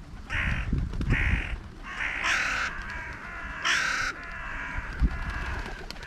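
Crows cawing: four harsh caws, each about half a second long, over a low rumble. A single sharp thump comes about five seconds in.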